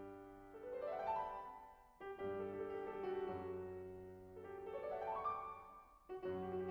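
Background piano music: sustained chords with rising runs of notes, phrases starting again about every two seconds.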